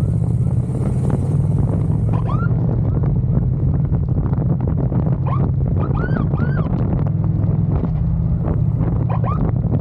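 Wind buffeting the microphone over the steady rumble of a police motorcycle riding at speed, with a few short rising siren chirps scattered through.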